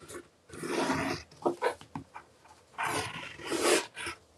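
Stylus pressed and dragged along paper over the edges of chipboard, scoring a crease for folding. Two scraping strokes about a second long each, with a few light taps between them.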